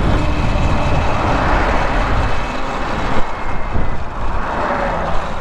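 Wind rushing and buffeting over the microphone, with tyre rumble, while riding an electric bike; the low rumble eases slightly about three seconds in.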